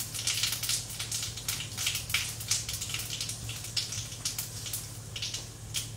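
Cumin seeds crackling and sizzling in hot oil in a kadhai: an irregular run of sharp little pops over a steady low hum. The oil had got too hot, and the cumin is scorching a little.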